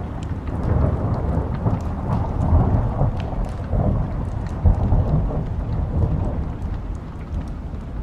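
A long roll of thunder that swells about a second in, rumbles through two peaks and dies away near the end, over steady rain. Short sharp pops of a crackling wood fire are scattered throughout.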